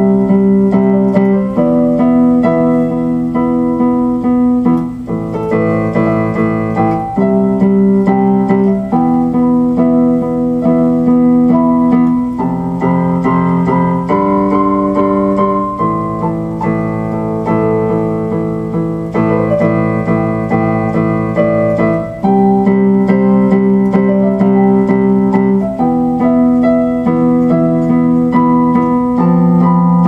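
Music on an electronic keyboard: slow held chords in a piano-like tone, changing about every two seconds.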